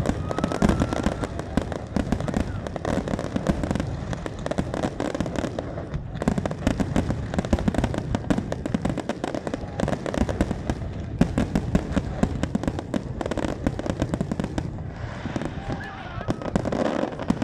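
Fireworks going off in a dense, continuous barrage: rapid bangs and crackles, many per second, with no pause.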